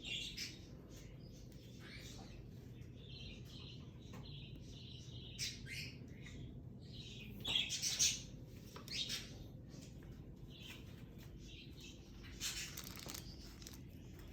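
Lovebirds chirping: short, high calls repeated irregularly, the loudest cluster about halfway through, over a steady low hum.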